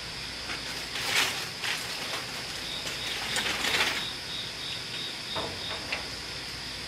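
Racks of ribs laid and slid into place on a smoker's metal mesh cooking grate, with two short scraping rustles, about a second in and just before four seconds in. A steady high-pitched chirping runs underneath.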